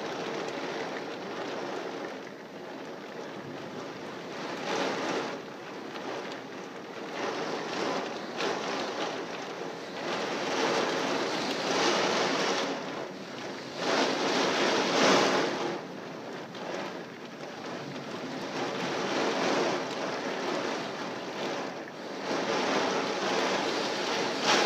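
Severe thunderstorm wind and heavy rain, a steady rushing that swells and eases in gusts every few seconds, with the strongest gusts about halfway through.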